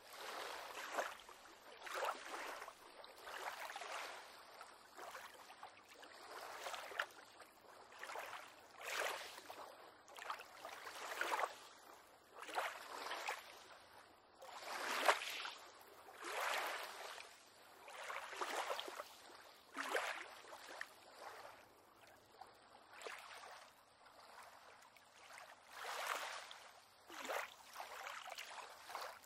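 Small waves lapping and splashing against a pier on calm water, an irregular slap or splash every second or two.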